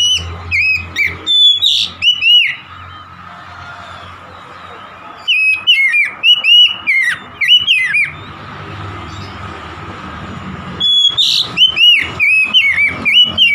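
Oriental magpie-robin singing in three loud bursts of quick, clear whistled notes that arch up and down, a few seconds apart, with a low steady hum in the pauses.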